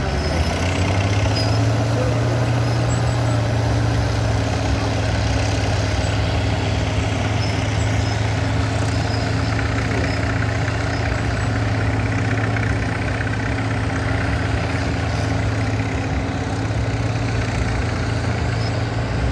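Heavy diesel engines of vintage earthmoving machines (crawler dozer and excavators) running steadily at work. One engine picks up revs about a second in and then holds a steady low drone.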